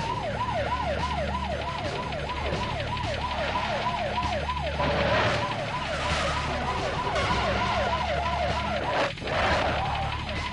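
Police car siren in a fast yelp, about three falling sweeps a second, with a second, lower siren joining about halfway through, over the low rumble of car engines.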